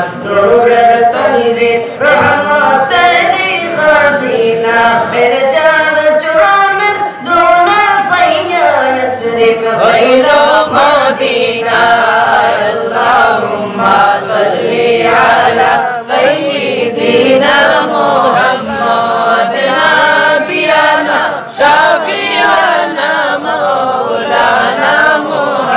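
Unaccompanied male voices, including a boy's, singing a naat (Islamic devotional song in praise of the Prophet) together into microphones, without instruments.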